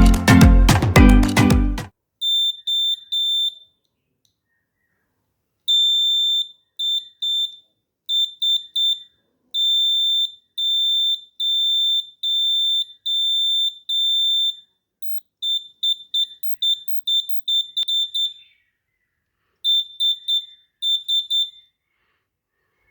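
Electronic buzzer of a battery-powered DIY doorbell beeping each time its switch is pressed: one steady high-pitched tone in irregular runs of short and longer beeps, up to about a second each. It starts after a short burst of music.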